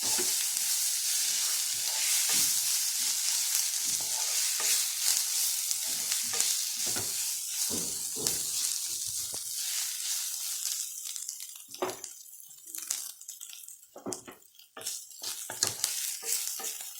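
Spices and fish frying in oil in a pan, sizzling while being stirred, with repeated scrapes and knocks of the spoon against the pan. The sizzle fades about two-thirds of the way through, leaving sparser scrapes and knocks.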